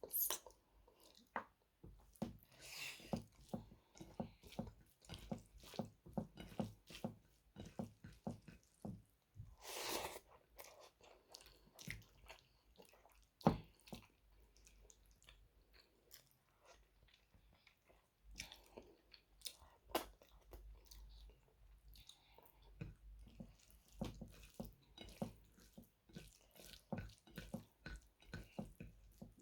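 A person chewing and biting mutton leg curry with rice: wet mouth smacks, soft crunches and irregular clicks, with one sharper click about halfway through.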